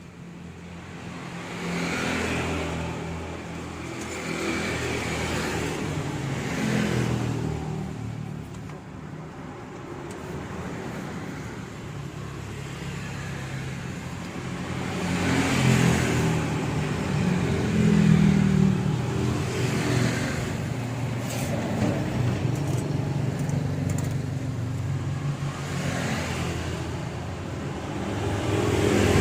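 Road traffic: vehicles passing one after another, each one's engine and tyre noise swelling and fading over a steady low hum.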